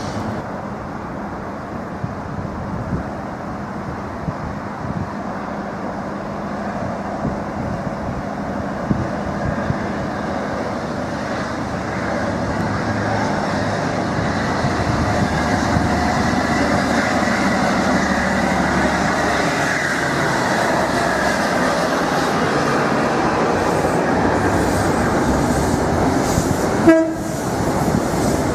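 Train running on the rails, its noise growing louder about halfway through, with a brief loud sharp sound near the end.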